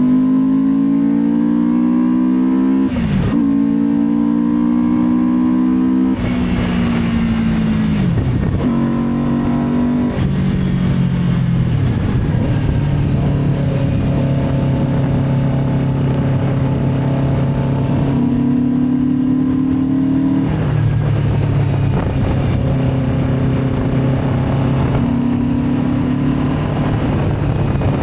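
Benda Dark Flag 500 Commander's V4 engine with twin exhausts, under way: the engine pitch climbs and then drops sharply at gear changes several times, with steadier stretches at a constant pitch in between.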